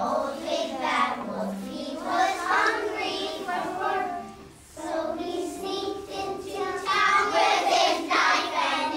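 A group of kindergarten children singing together, with a brief break about four and a half seconds in.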